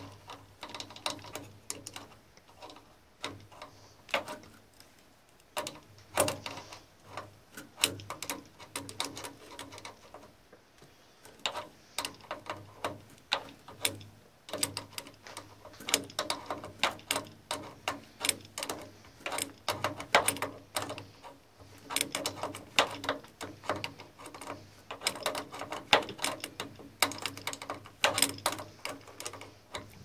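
Wrench working the brass tube nuts on a Rheem water heater's gas control valve, metal clicking and tapping on metal in rapid, irregular clusters as the fittings are turned and tightened. A faint low hum runs underneath.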